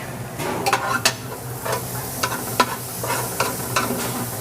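Garlic sizzling in a hot pan while being stirred, a utensil clacking against the pan at irregular moments.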